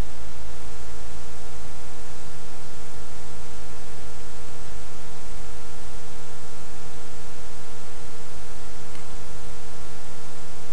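Steady electrical hum with several fixed tones over an even hiss, unchanging throughout: the recording's background noise.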